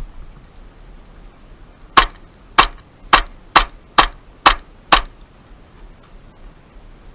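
Airsoft gun fired seven times in quick succession, about two shots a second, each a sharp crack.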